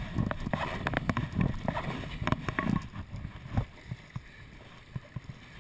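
Kayak paddle strokes splashing water beside the boat, with many sharp ticks and knocks close to the camera. Busy for about the first three and a half seconds, then quieter.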